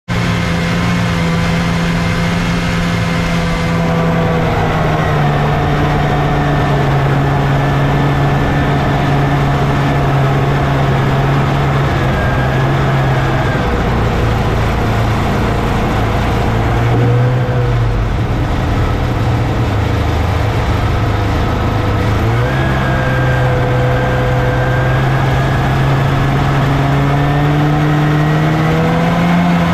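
1979 Scorpion Whip TKX 440 snowmobile's two-stroke engine running under way. Its pitch drops and rises several times as the throttle changes, and climbs near the end.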